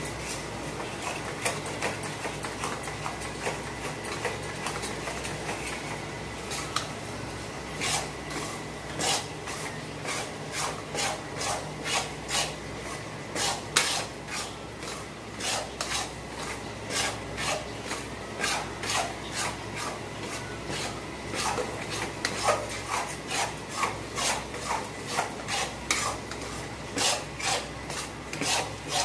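Metal spatula scraping and stirring besan (gram flour) as it roasts in ghee in a metal kadhai, in repeated rasping strokes roughly one to two a second, quickening in the later part. The flour is kept moving so it does not stick and burn at the bottom of the pan.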